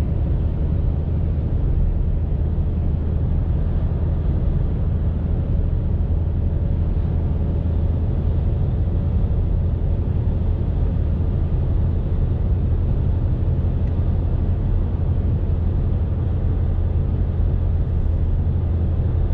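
Steady low rumble of a car heard from inside its cabin.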